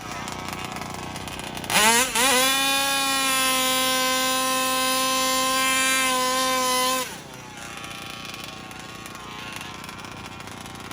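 Small two-stroke gas engine of a Rovan RC car being revved. It blips a few times, then is held at high revs with a steady, buzzy note for about five seconds, and drops off sharply to a much quieter running sound.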